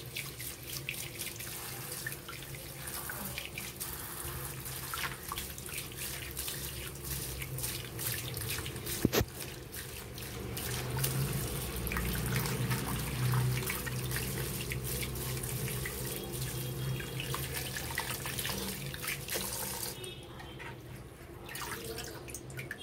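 Tap water running and splashing over fruit held under it and onto a plastic fruit basket in a plastic sink as the fruit is rinsed by hand. A sharp knock about nine seconds in, and the running water stops near the end.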